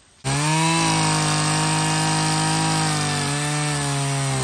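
Gas chainsaw running at high revs, cutting into a felled log. It starts abruptly about a quarter second in, and the engine note dips slightly about three seconds in.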